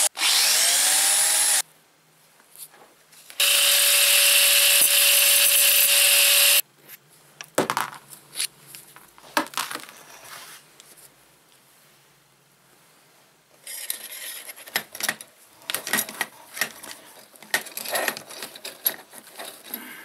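Electric drill boring a hole through the side of the furnace's metal can casing for the wire outlet, running twice: once until about a second and a half in, again from about three to six and a half seconds in. After that, scattered clicks and clatter of small metal parts and tools being handled.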